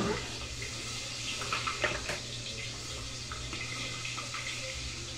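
Milkfish tail frying in hot oil: a steady sizzle with scattered pops and crackles, busiest about one and a half to two seconds in.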